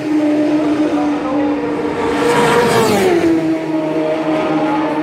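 Classic superbike racing motorcycles passing at racing speed. One engine note falls sharply in pitch as a bike goes by between two and three seconds in, over the steady lower note of one that passed just before.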